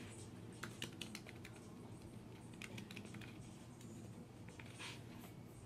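Faint, irregular typing on a computer keyboard, keys tapped in small clusters with short pauses.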